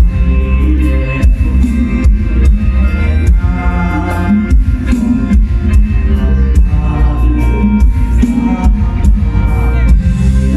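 Loud Thai ramwong dance music played by a mor lam band: heavy bass and a steady drum beat under sustained melody notes.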